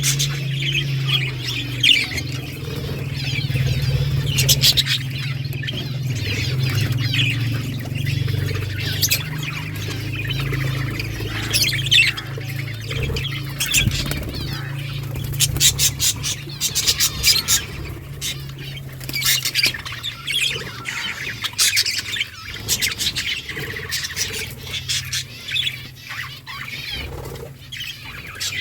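A flock of budgerigars chattering, with dense overlapping chirps, warbles and sharp squawks. A steady low hum runs underneath, fading after the first half.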